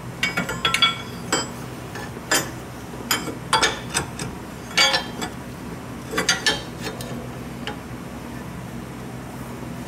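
A steel wrench clinking against a pulley bolt and the engine's metal bracket as it is fitted and turned: irregular sharp metallic clinks in small clusters, stopping about eight seconds in.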